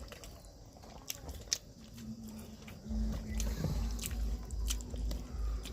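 Close-miked chewing of a mouthful of food, with sharp mouth clicks throughout. A steady chewing rhythm of about two chews a second sets in about three seconds in.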